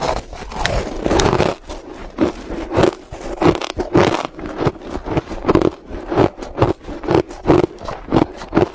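Crushed ice bitten and chewed, a steady run of crisp crunches about two a second, with a longer grinding crunch about a second in.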